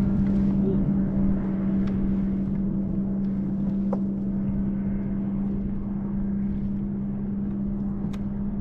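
Boat motor running steadily, a constant hum with low rumble beneath it, with a few faint clicks.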